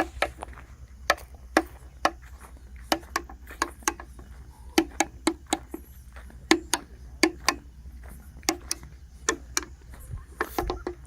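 A series of irregular sharp knocks or clicks, often coming in quick pairs, about one to two a second, over a steady low rumble.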